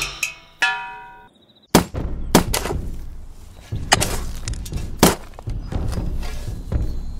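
Film background music: a few pitched notes fading away, a brief pause, then a steady low bed struck by several sharp, heavy thunks at uneven intervals.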